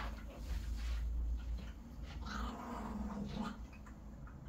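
A cat growling low and drawn out, for about a second, starting roughly two seconds in.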